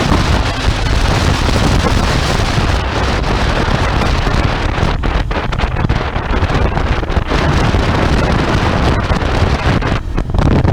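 Heavy wind buffeting on the microphone over the Royal Enfield Interceptor 650's parallel-twin engine running at road speed, a steady loud rush with a deep low rumble.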